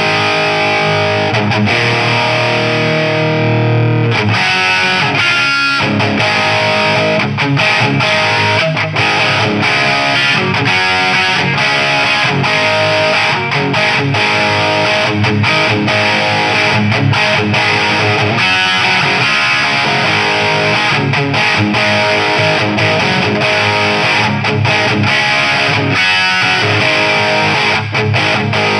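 Distorted electric guitar played through a Mojotone British 800 kit amp, a JCM800-style tube head. A chord rings out for the first few seconds, then fast picked riffs follow.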